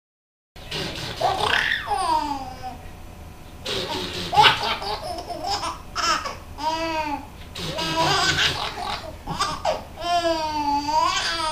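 Baby laughing hard in repeated bursts of high-pitched laughter with rising and falling pitch, starting about half a second in.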